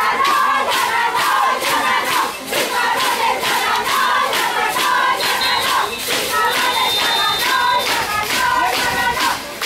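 Several voices singing over a steady, evenly spaced beat.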